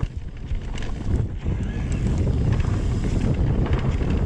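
Wind buffeting the camera microphone over the rumble and rattle of a mountain bike rolling down a rocky dirt trail.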